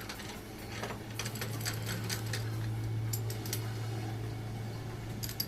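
Light metallic clicks and clinks, irregular and scattered, over a steady low hum.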